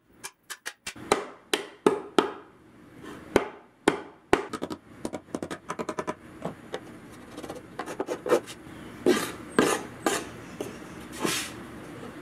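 Oak box boards being beaten with a chain to distress the wood: a quick run of sharp slaps on the wood, then a stretch of scraping and rubbing across the surface with a few heavier strikes.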